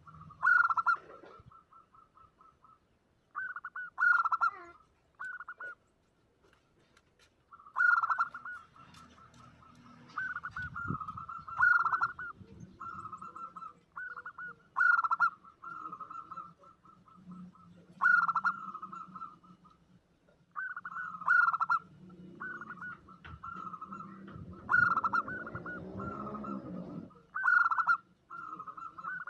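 Zebra doves (perkutut) cooing over and over, used as a lure call. Each phrase is a few loud accented coos run into a rapid staccato series, and the phrases repeat every two to three seconds.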